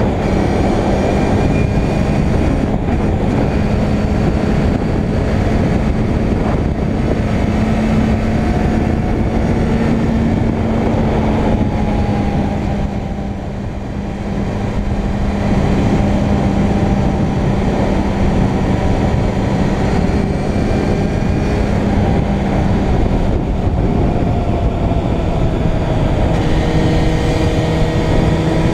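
Suzuki Bandit 600 N's inline-four engine running steadily at cruising revs, with heavy wind rumble on the camera microphone. The sound dips briefly about halfway through, then comes back at the same level.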